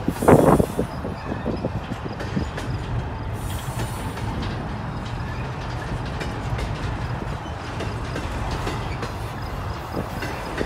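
Intermodal freight train's container well cars rolling past: a steady low rumble of steel wheels on rail, with a loud burst of clatter right at the start.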